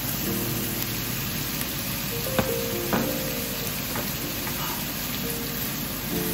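Food sizzling and crackling in a frying pan, with two sharp clicks half a second apart a little before the middle.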